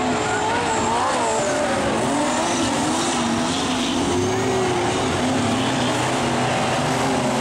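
Several speedway race car engines running together on a dirt oval, their pitch rising and falling as the cars go around.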